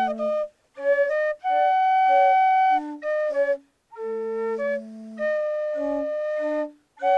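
Music on flute-like wind instruments: a melody of short and held notes over a lower held line, with brief silent breaks between phrases.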